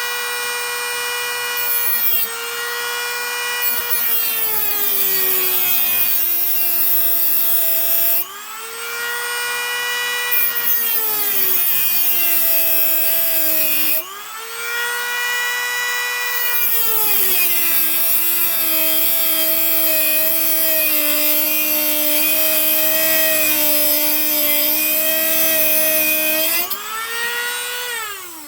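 Dremel rotary tool with a cutting wheel grinding a slot into a broken screw in an aluminum window frame. Its high whine drops in pitch each time the wheel bites under load and climbs back when it is eased off, a few times over, and it winds down just at the end as the tool is switched off.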